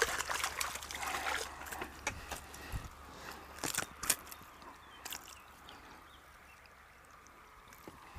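A hooked bass splashing at the surface as it is brought in at the water's edge, with water sloshing and trickling. A few sharp splashes come about three to four seconds in, then it grows quieter.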